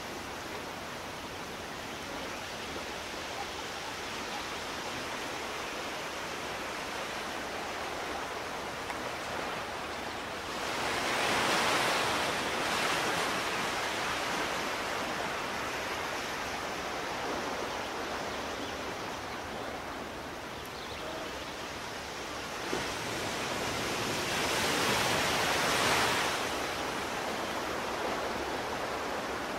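Steady rushing water noise that swells louder twice, for a few seconds each time, around the middle and near the end.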